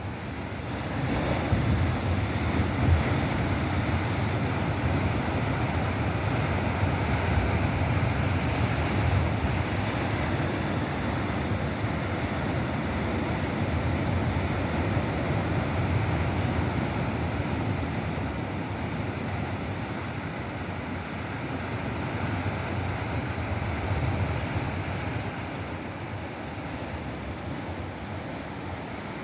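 Ocean surf breaking and washing onto the shore: a continuous rushing noise, deepest at the bottom. It swells about a second and a half in and eases off over the last few seconds.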